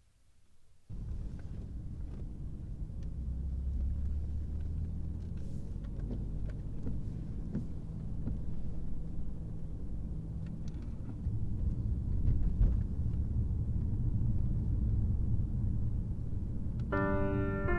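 Car interior road noise: a steady low rumble of the car driving, cutting in suddenly about a second in. Ambient music begins near the end.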